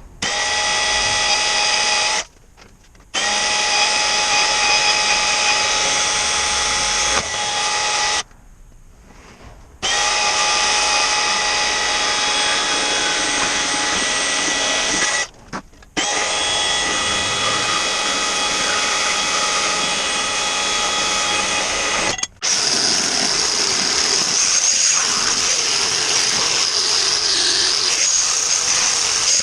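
Handheld electric power tool running in several long bursts with brief pauses, a steady motor whine. Near the end it runs without stopping and turns harsher and hissier, as if cutting into metal.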